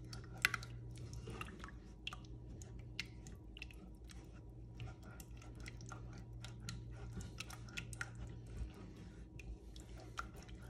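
Rubber spatula stirring thick tomato paste and water in a saucepan: irregular soft clicks and wet squelches as the spatula works the paste against the pan, over a faint steady low hum.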